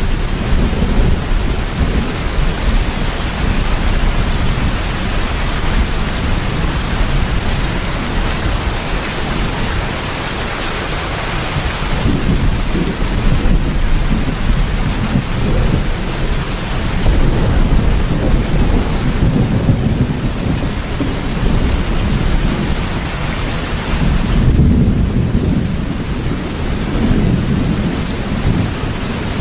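Steady heavy rain hissing without a break, over a deep low rumble of thunder that swells and fades, strongest about two-thirds of the way through.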